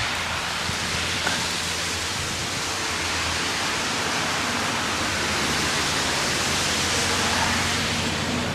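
Steady wind noise: an even rushing hiss that holds without a break.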